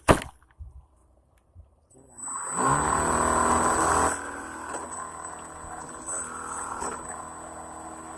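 A sharp click, then after a short pause an RC airplane motor driving its propeller spins up with a rising whine. It runs loud and steady for about a second and a half, then drops to a lower steady speed for the rest of the time.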